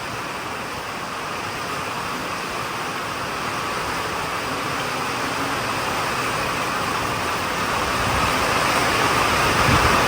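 Steady rain falling, a continuous even hiss that slowly grows louder, with a few low thumps near the end.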